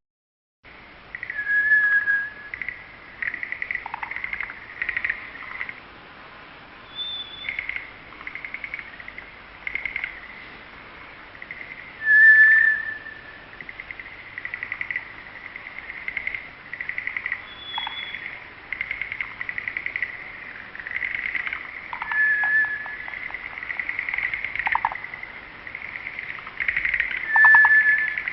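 Wild bird song: clear whistled notes repeated every five to ten seconds, a few higher short whistles, over a steady backdrop of rapid chirping trills. It begins just after a brief gap at the very start.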